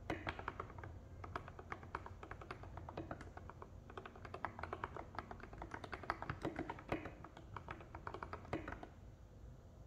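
Typing on a mechanical keyboard with lubed Gateron Milky Yellow linear switches and SA-profile keycaps: a quick, steady run of keystrokes that thins out near the end.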